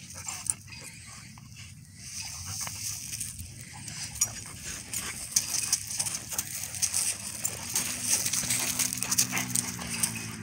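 Two dogs play-fighting on gravelly ground: scuffling and scraping of paws and bodies, with a low play growl for a couple of seconds from about eight seconds in.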